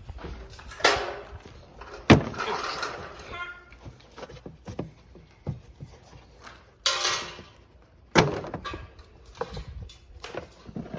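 Knocks, clunks and scraping from hands working on a pickup's air filter housing, with three sharp knocks and a scraping rush in between.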